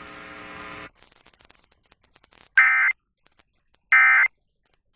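Emergency Alert System SAME digital data bursts: two short, loud buzzing tone bursts about 1.4 s apart, the end-of-message code that closes the alert. A faint steady hum ends about a second in, before them.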